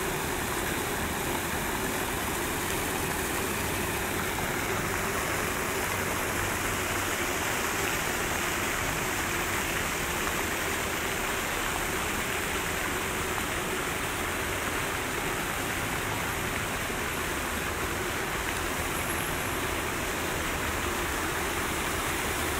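Steady splashing of fountain jets falling into a shallow pool, with the hum of road traffic underneath.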